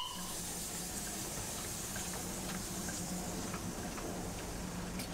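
A Darjeeling Himalayan Railway steam locomotive hissing steam steadily, with a low hum underneath and a few faint ticks.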